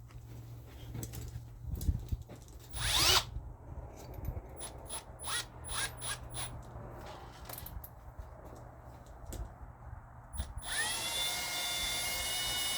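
Power drill with a small bit drilling rivet holes through the can muffler and exhaust pipe: a few short trigger blips and handling clicks, then about ten seconds in the drill spins up and runs steadily with a high whine.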